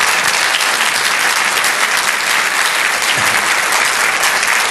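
An audience applauding with steady, dense clapping.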